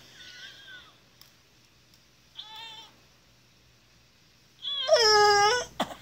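An elderly woman whimpering and crying out while her teeth are being cleaned, her mouth held open. There is a short, high whimper about two and a half seconds in, then a louder, longer wail about five seconds in.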